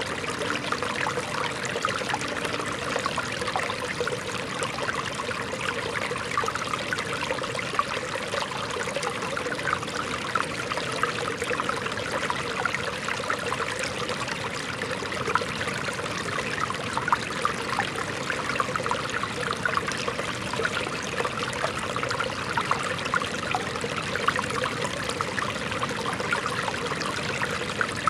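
Shallow rocky stream flowing over stones: a steady rush of water with constant small trickles and gurgles.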